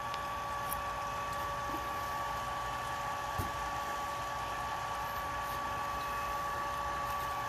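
Home-built plasma electrolysis reactor running with its electrodes immersed: a steady electrical hum with two high whining tones over a hiss, with a few faint clicks.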